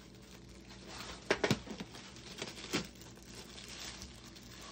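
Clear plastic wrapping crinkling as it is pulled off a wooden board, with a few sharper crackles about a second and a half in and again near three seconds.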